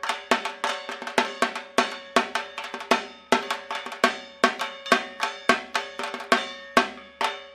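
Dhak drums beaten with sticks in a fast rhythm of sharp strokes, unevenly accented, with a steady ringing tone beneath them.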